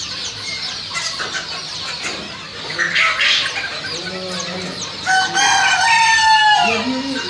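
A flock of chickens peeping and clucking, with a rooster crowing once from about five seconds in, a long call of nearly two seconds that drops in pitch at the end.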